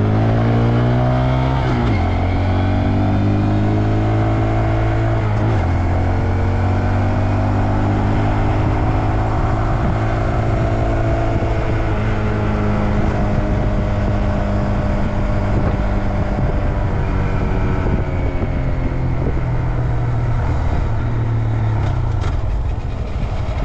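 Honda Grom's 125 cc single-cylinder engine under way, heard from the rider's seat while pulling up through the gears: the pitch climbs, drops at gear changes about two and five and a half seconds in, then holds steady at cruising speed and eases off near the end. Wind buffets the microphone throughout.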